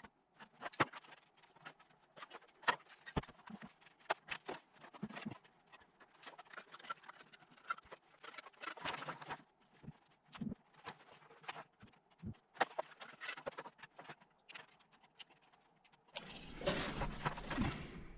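Irregular light knocks and clicks of hand bricklaying work, with blocks and a trowel being set and tapped. Near the end a louder, rougher scraping noise takes over.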